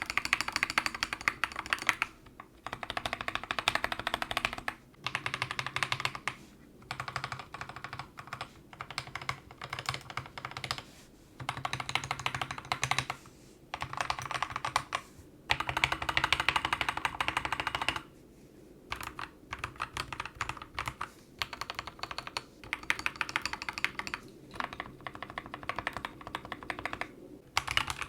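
Typing on a mechanical keyboard fitted with Akko CS Jelly Black linear switches: fast runs of keystrokes in bursts of a few seconds, with short pauses between them.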